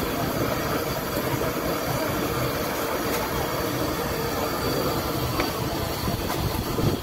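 Batter-coated potato vadas deep-frying in a large kadhai of hot oil: a steady, even sizzle.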